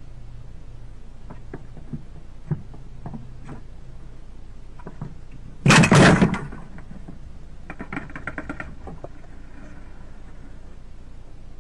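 Wooden Victor snap mousetrap going off with a loud snap and clatter about six seconds in as a squirrel trips it and leaps away. A few faint taps and scratches come before it, and a quick run of light clicks and taps about two seconds after.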